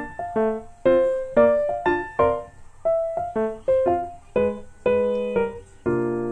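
Background piano music: single notes and small chords struck one after another, each dying away, then a chord held from about six seconds in.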